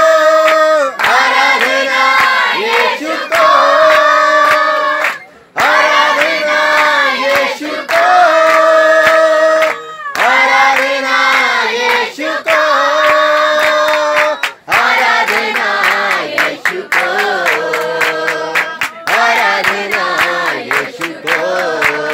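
A group of young men and women singing a worship song together, loudly, with hand clapping on the beat. The singing breaks off briefly twice.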